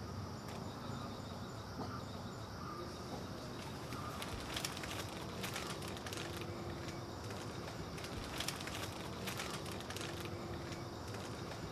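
Quiet outdoor background: a steady high insect hum with scattered short bird chirps and clicks, a few more of them in the middle.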